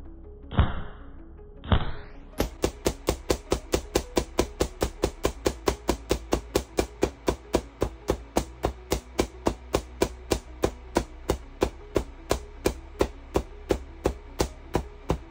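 QCW pancake Tesla coil firing a rapid, even train of short spark cracks, about three to four a second, beginning a couple of seconds in after a few slower single pops.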